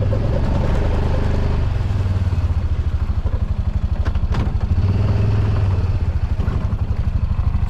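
Four-wheel-drive vehicle's engine running steadily while driving, with a few sharp knocks and rattles from the ride.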